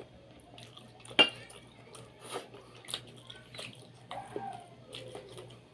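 Eating sounds: one sharp clink of a utensil against a dish about a second in, then several smaller clicks and mouth sounds of chewing.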